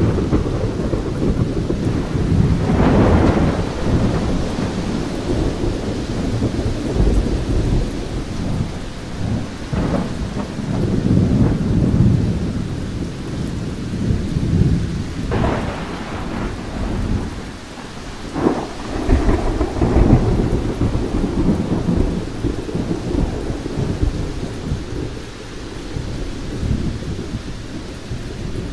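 Thunderstorm: thunder rumbling continuously with several sharper, louder claps spread through, over steady rain.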